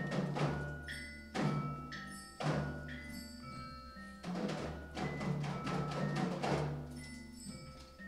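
Percussion music: a series of struck notes, each a low drum-like thud with ringing mallet-instrument tones above it that die away.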